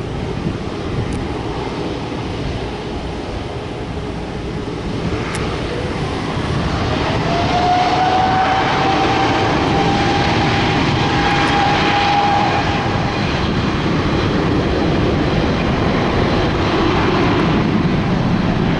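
Boeing 787 Dreamliner's jet engines spooling up for the takeoff roll: a broad rumble that grows louder about seven seconds in, with a high engine whine rising in pitch and then fading.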